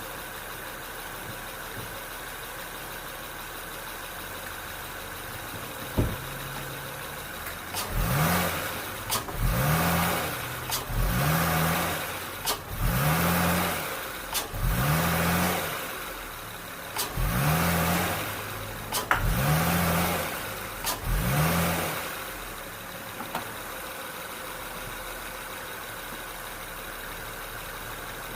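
Acura TL V6 engine idling, then blipped about eight times in a row, each short rev rising and dropping back, with sharp clicks among the revs, before it settles back to idle. The revs test for engine rocking from worn motor mounts, which the owner suspects are bad.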